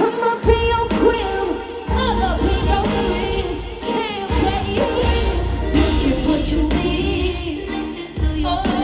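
Live pop concert music: a singing voice over a heavy bass beat, loud through the arena's sound system.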